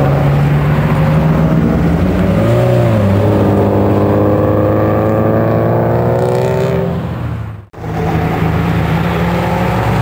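Subaru Impreza hillclimb race cars with turbocharged flat-four engines, revving hard through a hairpin. About two and a half seconds in the revs blip up and down, then the engine holds a long pull. The sound drops out briefly about three-quarters of the way through and the engine picks up again.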